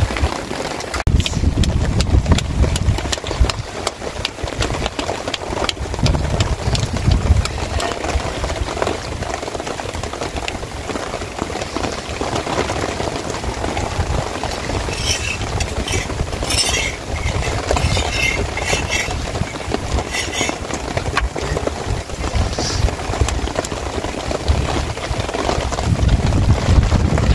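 Gusty wind rumbling on the microphone, rising and falling, with a scatter of small clicks and taps and a cluster of sharper crackles in the middle.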